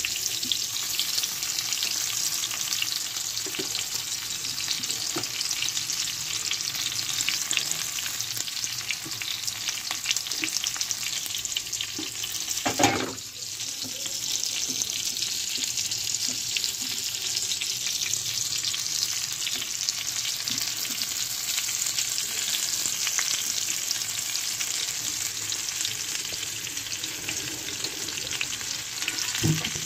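Chicken pieces in egg coating shallow-frying in hot oil in a black iron pan: a steady crackling sizzle with fine spitting pops. About halfway through there is one short, louder knock.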